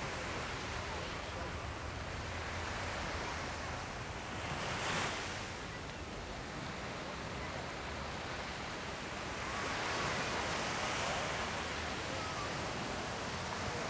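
Small waves breaking and washing up a sandy beach: a steady surf wash that swells briefly about five seconds in and again from about ten seconds on.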